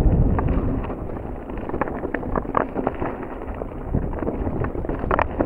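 Mountain bike rolling down a rough dirt singletrack: wind buffeting the action-camera microphone and tyre rumble, with frequent sharp clicks and rattles from the bike over the rough ground.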